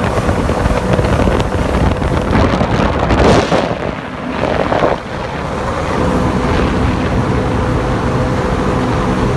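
Jet ski engine running under way, with wind buffeting the microphone. About three seconds in, a loud rush of noise briefly drowns the engine note, which comes back steady from about six seconds in.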